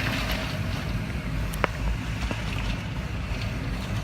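Hurricane wind buffeting the microphone: a steady, heavy rumble with hiss above it and a sharp click about one and a half seconds in.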